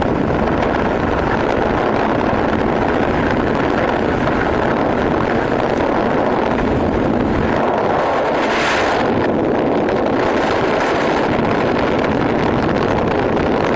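Steady rushing wind buffeting the microphone from riding in the open back of a moving pickup taxi, with the vehicle's running noise underneath.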